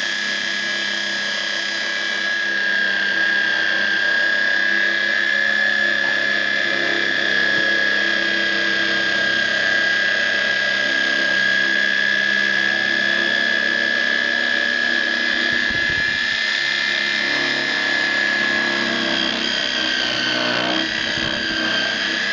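CNC machine running with a steady high whine and a noisy mechanical hum beneath it. The whine sags in pitch for a moment near the end.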